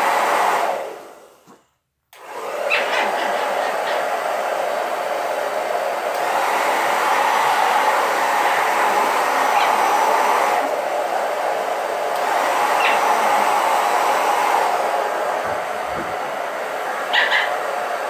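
Twister handheld hair dryer blowing with a steady rushing hiss. It cuts out about a second and a half in and comes back on about half a second later.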